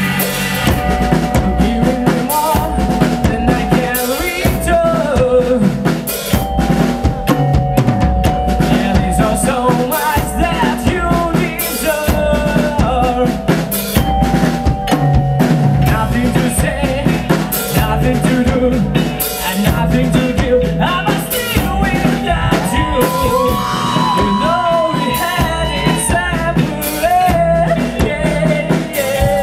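A live rock band plays an instrumental passage. A drum kit drives it with a steady beat, under a bass line and a melodic lead line that slides in pitch.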